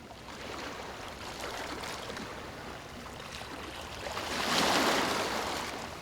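Ocean waves washing on the shore, with one wave swelling louder and breaking about four and a half seconds in.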